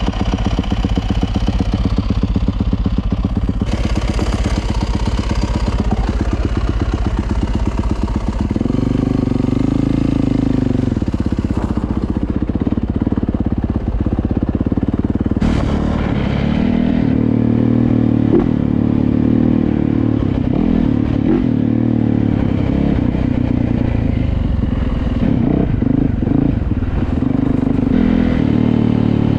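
Yamaha YZ450F's 450 cc four-stroke single-cylinder engine, first idling evenly, then pulling away about eight seconds in and running under varying throttle as the bike is ridden.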